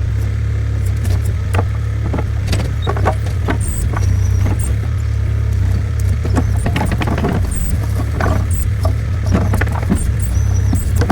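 Small New Holland skid steer's engine running steadily under load, with frequent short clanks and knocks from the machine at work.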